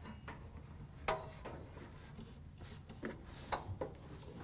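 Light clicks and rubbing as a dryer's spring-loaded idler pulley is pulled aside and the multi-rib drive belt slides off the pulleys, with a sharp click about a second in and a few softer ones around three seconds in.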